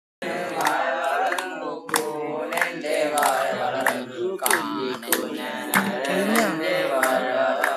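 A group of people singing a repetitive Malayalam song together, with hand claps keeping a steady beat about twice a second.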